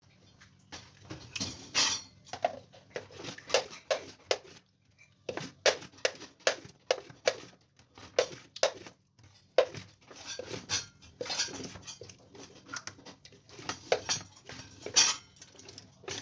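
Irregular short wet clicks, squelches and knocks, two or three a second, as a green plastic cup is pressed and pushed along raw, wet beef intestine on a plastic cutting board to clean it.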